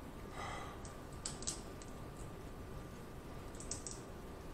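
King crab leg shell being cracked and picked apart by hand close to the microphone: a short crunch about half a second in, then small sharp cracks and clicks in two clusters, one after a second and one near the end.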